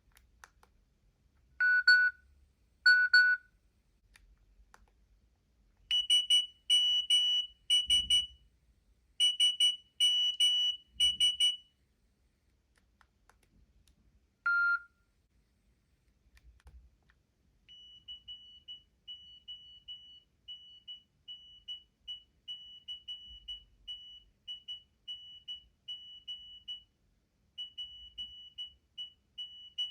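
A Nokia 7250i phone's speaker playing several short preloaded alert tones one after another. First come two single beeps, then two quick clusters of chirping tones, then one lone beep. After a pause, a fast repeating high beep, about three a second, starts and keeps going.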